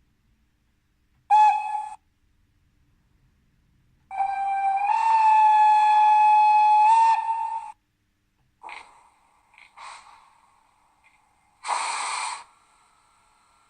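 ZIMO sound decoder of a Piko H0 class 218 model locomotive sounding its horn: a short blast, then a long blast that steps up in pitch and back down. A few short hisses follow, then a louder burst of hiss near the end.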